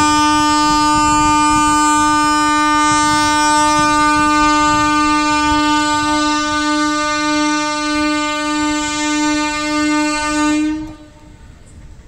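A train horn sounding one long, steady blast at a single pitch, which stops fairly quickly about eleven seconds in.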